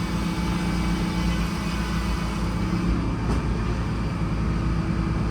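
Sawmill's engine running steadily with a low, even drone.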